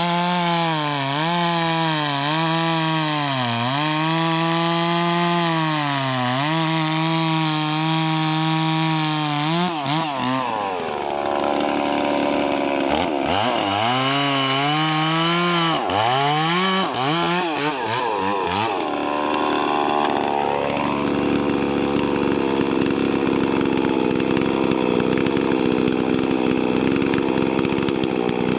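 Farmertech/Huztl MS 440 clone two-stroke chainsaw cutting through a big hardwood round at full throttle, its pitch dipping every second or two as the chain loads in the cut. Past the middle it revs up and down several times, then settles into a steady idle.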